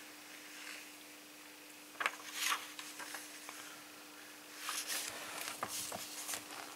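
Soft rustling of a paper catalogue being handled, a short rustle about two seconds in and a run of soft rustles and taps from about five seconds on, over a faint steady hum.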